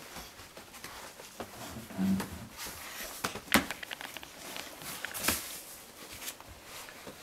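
A mother dog scratching and shuffling in her whelping nest's bedding, irregular rustling with scattered sharp clicks as she rearranges it to settle into position.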